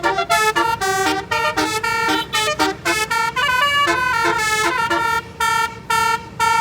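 Basuri telolet multi-tone bus horn playing a fast tune of short notes that step up and down in pitch, several tones sounding together, with a few brief breaks near the end.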